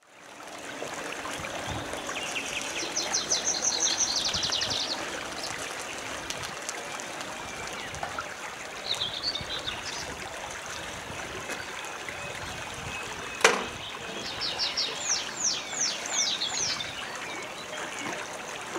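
Small river flowing steadily, with a songbird singing a rapid high trill twice, a few seconds in and again near the end, and a single sharp knock about two-thirds of the way through.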